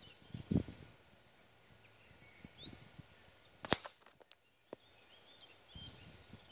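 Air Arms S200 .177 PCP air rifle firing one shot: a single sharp crack about two-thirds of the way through, followed by a few faint ticks. Birds chirp faintly in the background.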